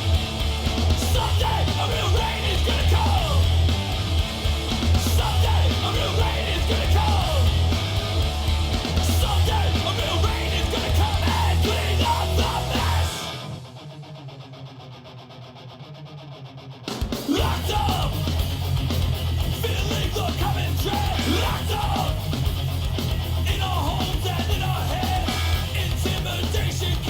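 Loud heavy rock music with shouted vocals. About halfway through it drops for a few seconds to a quieter, thinner passage, then comes back in full.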